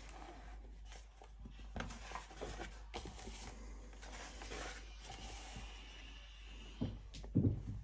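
Pages of a hardcover picture book being turned by hand: soft paper rustles and light taps as the pages are flipped and smoothed flat.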